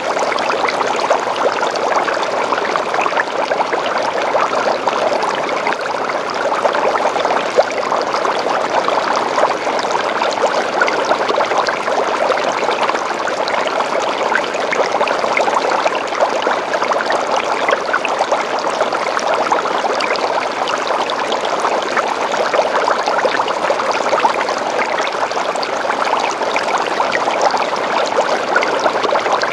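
Steady splashing rush of running, bubbling water in an aquarium, unbroken and even.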